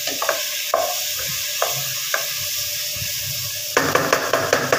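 Bitter gourd, onion and tomato sizzling in oil in a frying pan while a spatula stirs and scrapes against the pan. The scrapes come every half second or so, then in a quick run near the end.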